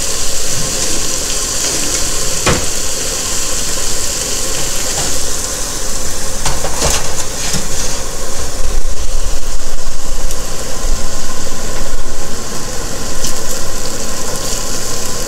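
Smash burger patties sizzling on a hot griddle, a steady hiss over a low rumble. A sharp knock comes about two and a half seconds in, and a few more around seven seconds.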